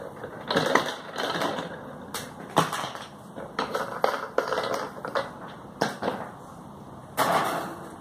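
Irregular clatter and rattling as a wall fan is taken apart by hand: the wire guard rattles and knocks and the plastic blade and housing click and scrape. There are sharper knocks about two and a half seconds in and again near the end.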